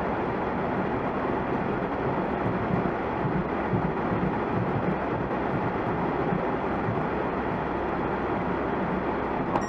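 Steady road and tyre noise of a car driving at speed, heard from inside the cabin through a dashcam microphone.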